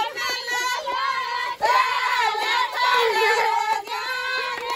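A group of women singing a wedding folk song together in high voices, with hand claps.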